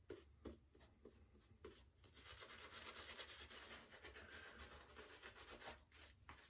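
Shaving brush being swirled over the face, working a still-dry lather of shave soap: faint brushing strokes that become a steady soft rustle about two seconds in and ease off near the end.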